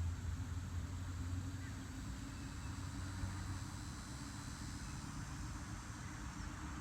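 Outdoor background noise: a steady low rumble with a faint steady hum and a thin high hiss, and no distinct event.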